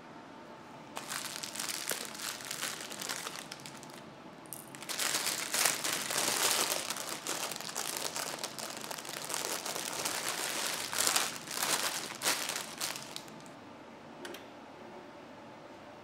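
Plastic bag around a sliced brioche loaf crinkling as it is opened and handled. It comes in two spells: a lighter one about a second in, then a longer, louder one from about five seconds in until near the end.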